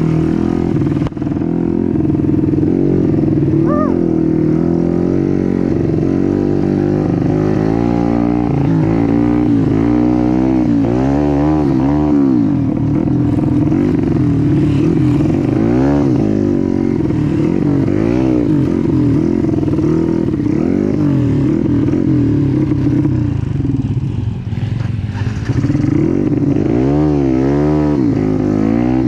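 Small motorcycle engine running under riding load, revving up and down over and over as the throttle is worked, with steadier stretches in between.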